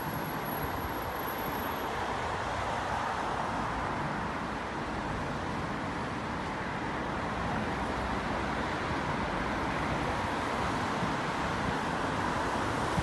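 Steady road traffic noise from cars and vans driving along a wet road, tyres on wet tarmac mixed with engine noise.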